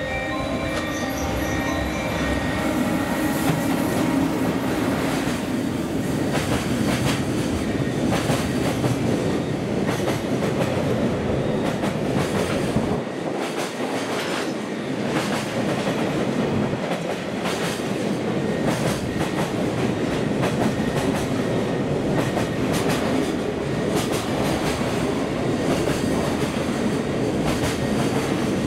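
JR Freight EF210 electric locomotive and a long train of container wagons passing through a station without stopping: a steady loud rumble of wheels on rail with a rhythmic clickety-clack as the wagons cross the rail joints.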